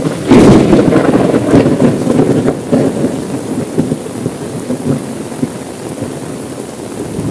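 A loud clap of thunder just after the start, crackling and rumbling for about three seconds before dying down, over steady rain on a car window. Another rumble of thunder swells up at the very end.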